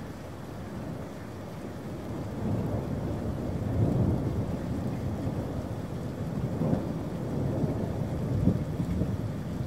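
Rolling thunder during a rainstorm: a low rumble that builds from about two seconds in and swells twice, over the steady sound of rain.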